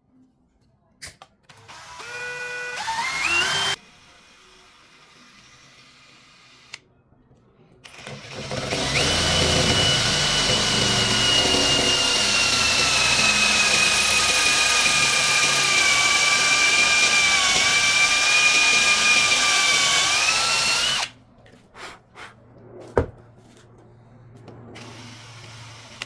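Electric drill with three drill bits mounted together in its chuck. About two seconds in it spins up briefly with a rising whine; then it runs for about twelve seconds drilling a hole, its whine sagging slowly under load and rising again just before it stops. A few clicks and one sharp knock follow near the end.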